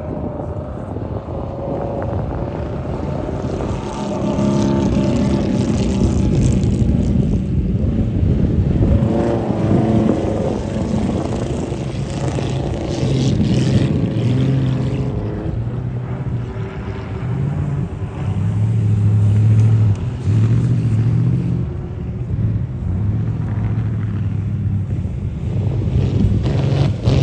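Classic car engines running and driving past, their pitch rising and falling as they accelerate and pass, with louder passes about four seconds in and again near the twenty-second mark.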